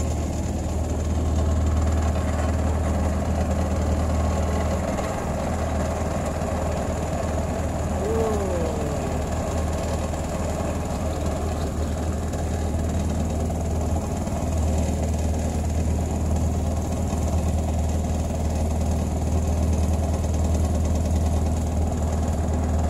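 Small wooden boat's engine idling, a steady low hum. A brief gliding tone sounds once about eight seconds in.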